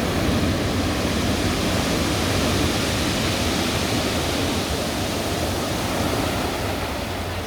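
Storm surf breaking and washing up the shore, a steady rushing noise that swells slightly now and then.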